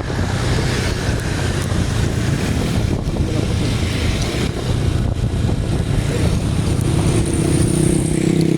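Road vehicle engine running amid traffic noise, with a louder, deeper engine tone coming in about seven seconds in as a vehicle draws close.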